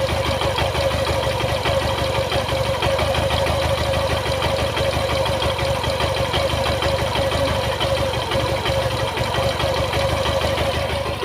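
Suzuki Gixxer FI single-cylinder motorcycle engine idling steadily, with a steady whine over the running, the noise presented as an engine sound problem.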